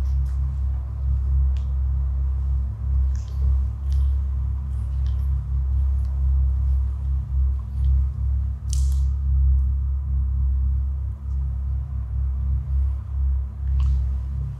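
Dark ambient music: a steady low drone, with a few faint clicks and a brief hiss about nine seconds in.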